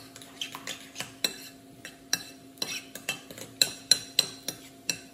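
A metal spoon stirring guacamole in a ceramic bowl, clinking against the bowl in irregular sharp taps, about three a second.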